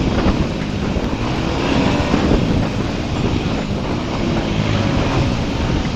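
A vehicle's engine running on the road, its pitch drifting up and down, with wind noise on the microphone.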